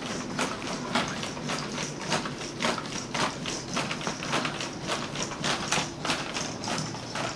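Motorised cat-in-the-bag toy running inside its paper bag, giving a quick, irregular scratching and tapping, several clicks a second.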